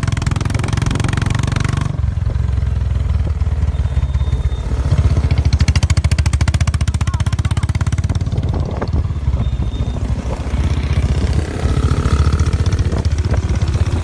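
Motorcycle engine running, a steady low drone whose rapid exhaust pulses stand out in the middle of the stretch, with a loud hiss over it for the first two seconds.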